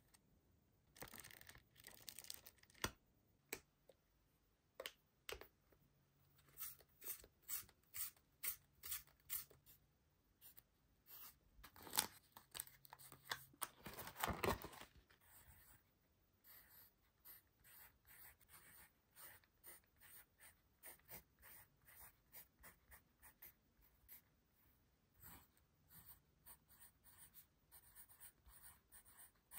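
Faint handling of a small spiral-bound paper notepad: the cover and pages are turned, with scattered clicks and a louder paper rustle about halfway through. Then a pencil writes on the lined paper in a quick run of short scratchy strokes.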